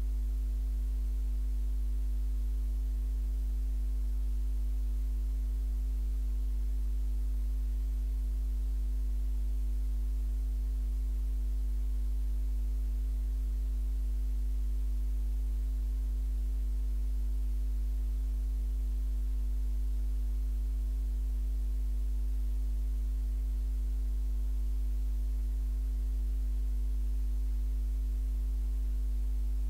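Steady low electrical hum with several fainter higher overtones, unchanging.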